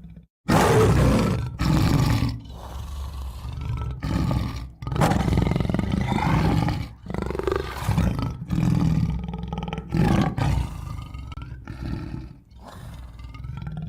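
Tiger roaring: a run of loud roars, each a second or two long with short breaks between them, beginning after a brief silence.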